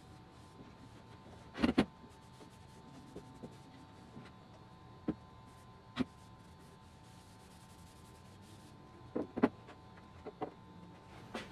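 Wooden checkerboard knocking against a perforated workbench top as it is turned and set down: a handful of sharp wooden knocks, the loudest about two seconds in and again about nine seconds in.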